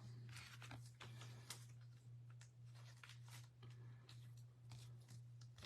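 Faint rustling and light scraping of trading cards and their plastic sleeves being handled, over a steady low electrical hum.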